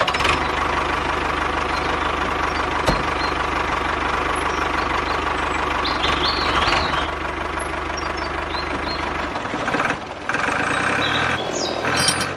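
Small electric motor and gears of a handmade toy tractor running with a steady rattling drone as the tractor drives. The sound drops briefly about ten seconds in.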